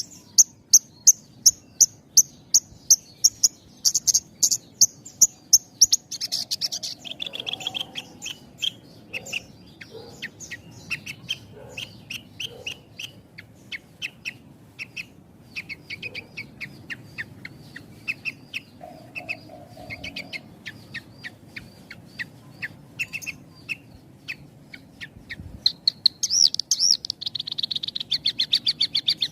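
Horsfield's bush lark (branjangan) singing in quick runs of short repeated chirps with little pause between phrases. The notes are high for the first six seconds, drop to lower notes through the middle, and return to a dense high run near the end.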